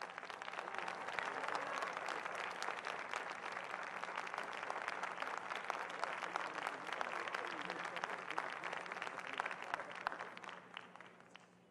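Large concert audience applauding, swelling within the first second, holding steady, then dying away near the end.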